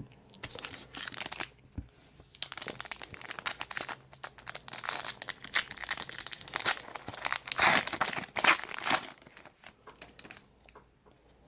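Plastic trading-card pack wrapper being torn open and crinkled by hand, a dense crackling that comes in bursts over several seconds and is loudest about three quarters of the way through before stopping.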